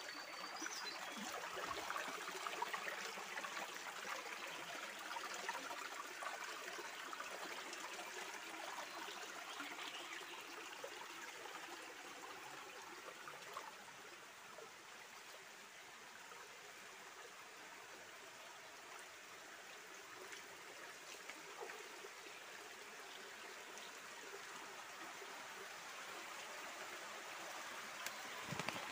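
Shallow stream running over rocks, a steady trickling rush of water that is a little louder for the first several seconds, eases off through the middle and swells again near the end.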